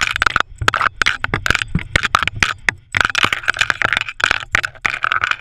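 Rapid, irregular clatter of clicks and knocks from a GoPro camera jolting in its harness mount on a running dog, over a rushing noise.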